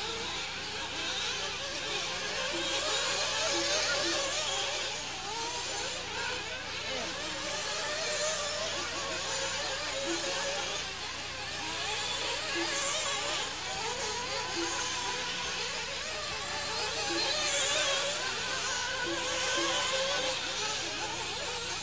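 Several nitro RC buggy engines running at high revs as they race round the track: a continuous high-pitched buzz whose pitch keeps wavering up and down as the engines rev and back off.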